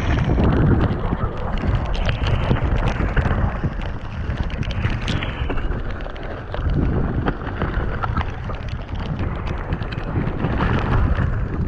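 Wind buffeting the microphone, a loud, uneven rumble with scattered light clicks and knocks.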